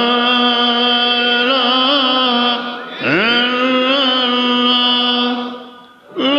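A man's voice chanting zikr in long, drawn-out phrases. Each swoops up from low into a steady held note lasting about three seconds, with a short breath between; two full phrases, and a third begins near the end.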